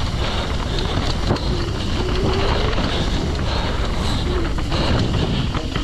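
Wind rushing over the microphone of a mountain bike at speed downhill, mixed with tyre noise on the trail and short knocks as the bike clatters over bumps.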